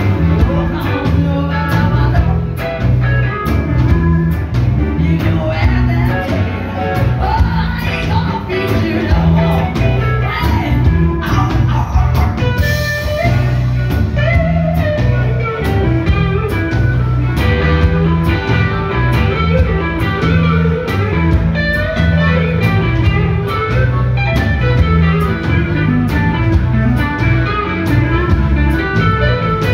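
Live blues band: drums and bass in a steady repeating groove with electric guitar, a woman singing at first, then a lead electric guitar from a black Les Paul-style guitar playing over the band.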